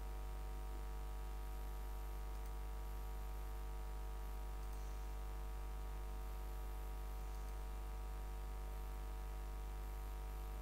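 Steady low electrical hum and hiss from the recording chain, with a few faint clicks now and then.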